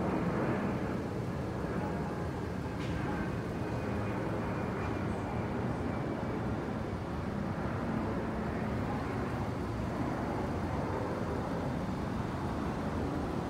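Steady low rumble of distant diesel freight locomotives approaching, under a hiss of city background noise.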